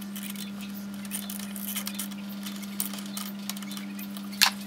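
Small metallic ticks and clicks of a nut driver turning a nut down onto a cable ring lug on a DC circuit breaker's terminal stud, with one sharper clink about four and a half seconds in. A low steady hum runs underneath.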